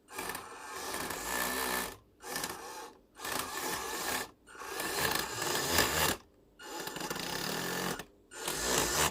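WPL B36 1/16 RC truck's motor and gearbox run in six short bursts, each a harsh grinding with a thin whine over it. It is the sign of gears skipping, which the owner suspects is a gear slipping out of mesh or a failing motor.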